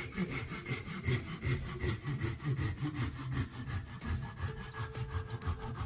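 Sawing in a steady run of quick, even strokes, about five or six a second.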